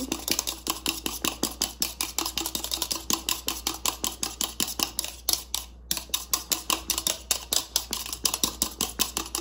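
Metal hand whisk beating eggs (whipped whites with the yolks) in a bowl: quick, even clicking and scraping strokes against the bowl, about five a second, with a short break a little past halfway.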